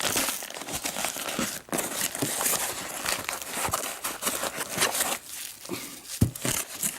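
Paper being crumpled and torn by hand: a steady run of irregular crinkling and rustling.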